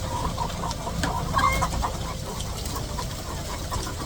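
A crowd of chickens clucking and calling over one another, the loudest calls about a second and a half in, over a steady low rumble.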